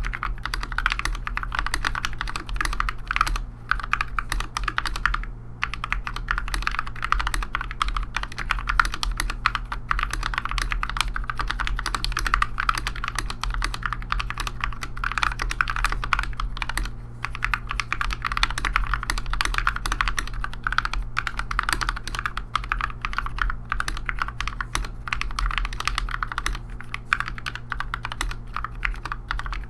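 Mechanical keyboard typing on lubed and filmed Gateron Yellow linear switches in a GMMK Barebones board: a fast, continuous stream of keystrokes with short pauses near 5 and 17 seconds in. A steady low hum sits underneath.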